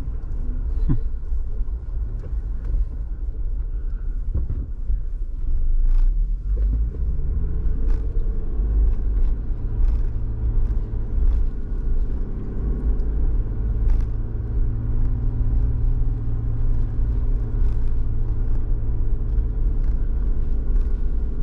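Jeep engine and road rumble heard from inside the cab while driving slowly, a steady low drone with a few faint clicks.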